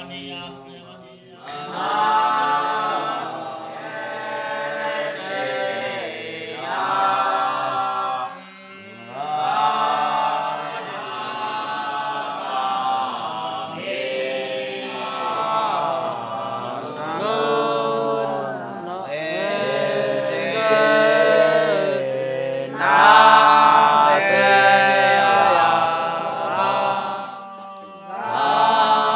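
Buddhist monks chanting together in a steady, sung recitation, in long phrases with short pauses between them.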